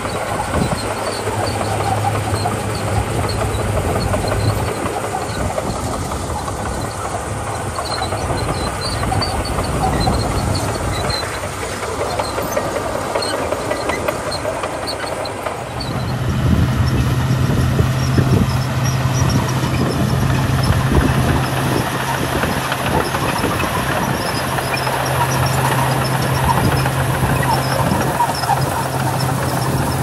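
Komatsu crawler bulldozer's diesel engine running steadily under load while its blade pushes crushed gravel, with the crunch and crackle of stone and the clatter of the tracks. About halfway through the engine hum shifts slightly higher and louder.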